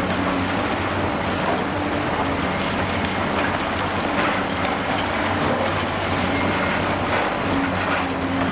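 Heavy diesel engine of a demolition excavator running steadily, with a few faint knocks over it.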